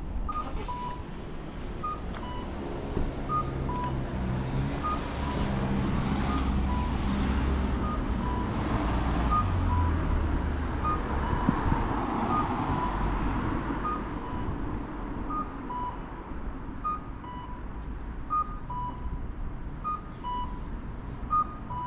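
Road traffic with a repeating two-note electronic beep, a higher note then a lower one, sounding about every second and a half. A motor vehicle passes in the middle, its engine the loudest part.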